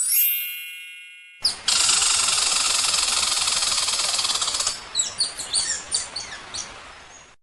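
A bell-like chime rings once and fades. Then comes a loud, steady, rapidly pulsing buzz for about three seconds. About five seconds in, a run of short bird chirps follows.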